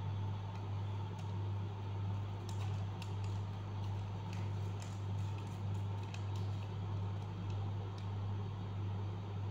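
A steady low hum runs throughout. Over it, light crinkles and taps of foil-backed origami paper being folded and creased by hand cluster from about two and a half to six and a half seconds in.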